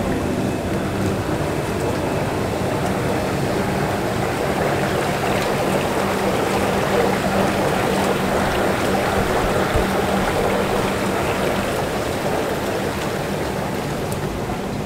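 Hot tub jets bubbling and churning the water in a steady rush, with a steady low hum underneath.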